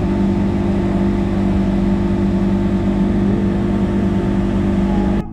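Boat engine running steadily under way at about 9 knots, a constant hum over a rush of noise. It cuts off abruptly near the end.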